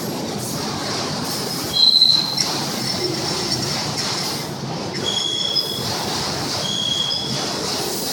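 Steady rumbling running noise with three brief high-pitched squeals, the first and loudest about two seconds in, the others about five and seven seconds in.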